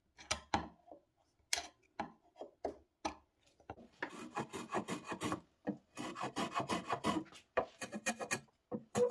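A bench chisel pares European ash at a tenon shoulder in a handful of separate short cuts. About four seconds in, a small hand plane takes over, shaving the tenon in runs of quick scraping strokes.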